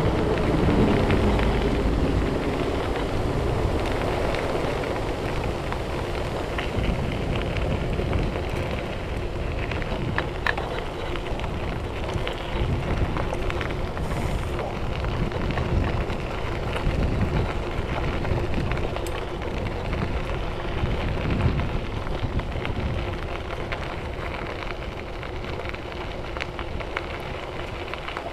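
Mountain bike rolling over a gravel trail: a steady crackle of tyres on loose gravel, with small rattles and knocks throughout. Loudest in the first couple of seconds, easing a little toward the end.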